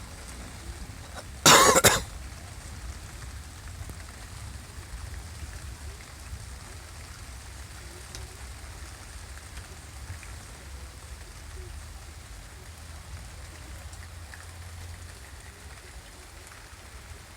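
Steady rain falling during a thunderstorm, a soft hiss over a low rumble. About a second and a half in, one short, loud burst of noise lasting about half a second cuts in.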